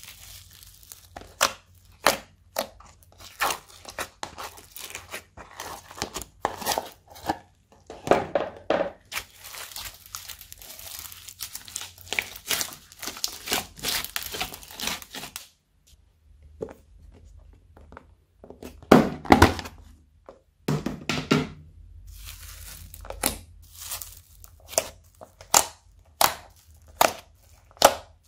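Foamy slime being poked, squeezed and kneaded by fingers in plastic tubs: a dense, irregular run of sticky pops and crackles, with a short lull about halfway and the loudest, deeper pops about two-thirds of the way through.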